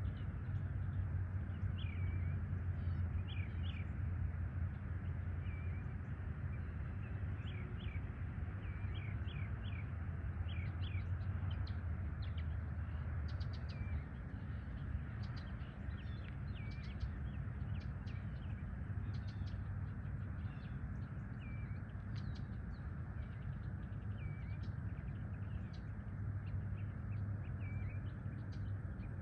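Wild birds chirping and calling in short, scattered notes over a steady low rumble.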